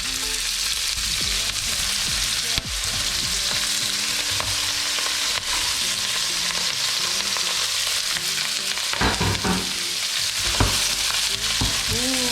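Pork belly sizzling in hot oil in a frying pan, a steady frying hiss. A few sharp knocks come near the end, about nine and ten and a half seconds in.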